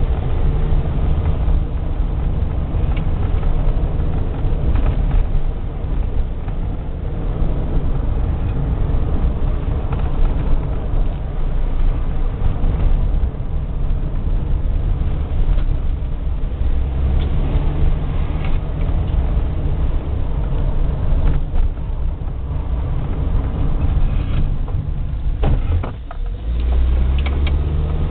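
Car engine and tyre noise heard from inside the cabin while driving, a steady low rumble. It drops briefly near the end, then picks up again.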